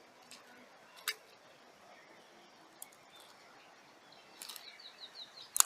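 Faint outdoor background with a small bird giving a quick run of short high chirps near the end, and a couple of sharp clicks, one about a second in and a louder one at the very end.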